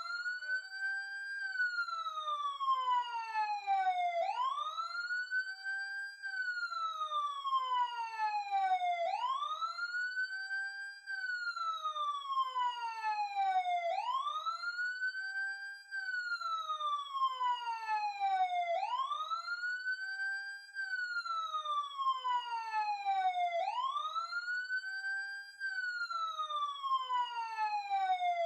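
Police car siren sounding its wail: the pitch rises quickly, holds for a moment, then slides slowly down, repeating about every five seconds.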